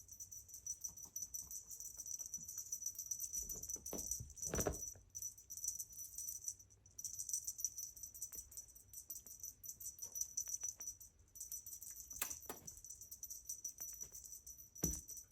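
A small bell jingling in quick, almost unbroken rattles as a kitten plays, with a few soft knocks; the jingling stops briefly about six and a half and eleven seconds in.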